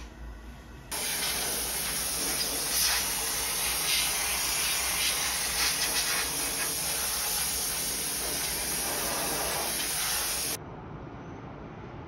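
A loud, steady hiss that starts abruptly about a second in and cuts off suddenly about ten seconds later.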